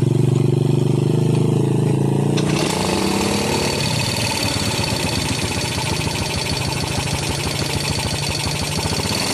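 Motorcycle engine running steadily. About two and a half seconds in it pulls away, its rapid engine pulses now under a broad rush of noise.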